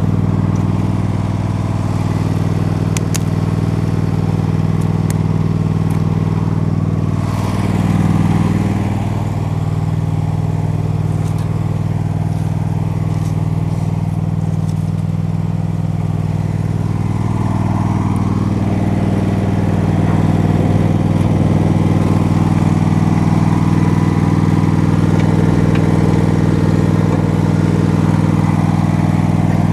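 Lawn tractor's small gasoline engine running steadily, with a brief swell about eight seconds in and a few light clinks from the cart.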